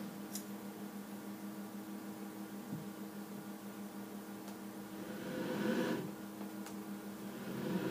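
KUKA LBR iiwa 7 robot arm's joint drives humming steadily while powered, with several steady tones. The hum swells into a louder whir about five seconds in and again near the end as the arm moves.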